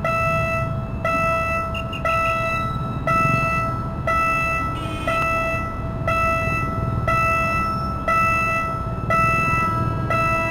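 Level-crossing warning bell ringing steadily, about one strike a second, over a low rumble of traffic and an approaching train.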